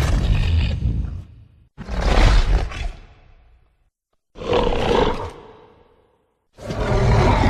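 Four loud monster roars in a row, each a second or two long with a deep rumble under a harsh, raspy top, broken by short gaps of dead silence: edited creature-roar sound effects standing in for a giant Komodo dragon.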